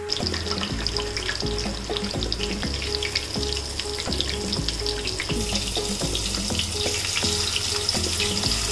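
Masala-coated king mackerel (surmai) steaks frying in hot coconut oil with curry leaves: a steady sizzle full of small pops and crackles. The sizzle grows brighter about five seconds in, as a second steak goes into the oil.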